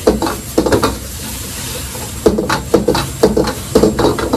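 A metal ladle clanking and scraping against a steel wok as pork and onions are stir-fried: a quick run of strikes, a pause of about a second, then another run of about two strikes a second. Frying sizzle and the gas burner's steady noise run underneath.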